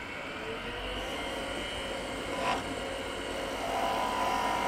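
Wood lathe running while a skew chisel cuts a spinning wooden spindle: a steady hiss of the cut, with a brief swell about two and a half seconds in and a buzzing tone building near the end as the cut bites harder.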